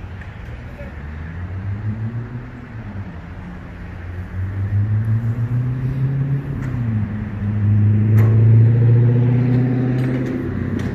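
An engine running, its pitch rising and falling a few times as it speeds up and slows, loudest and steadiest about eight to ten seconds in.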